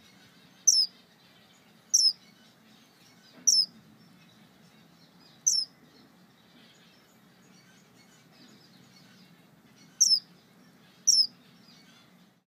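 Male star finch giving six short, high calls, each a quick downward slur, spaced one to two seconds apart with a longer pause in the middle: the male calling for his mate.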